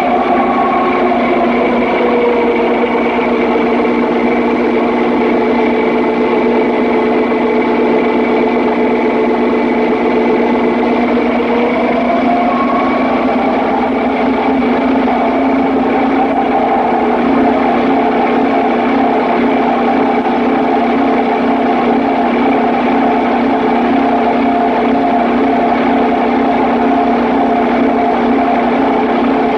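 Papp noble-gas engine running steadily, a loud drone with several held tones. One higher tone sags slightly and climbs back about halfway through.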